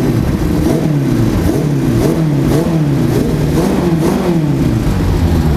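Four-cylinder engine of the home-built Riva 600 motorcycle, made from Honda CG parts and fed by two carburettors, revved in repeated quick throttle blips, about two a second, each rising and falling in pitch. It responds fast and doesn't stumble.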